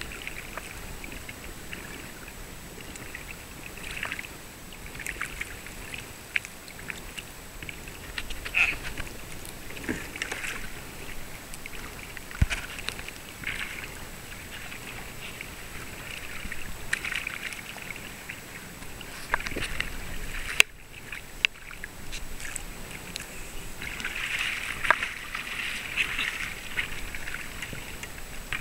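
Small waves lapping and splashing against a kayak hull, with scattered light knocks and clicks.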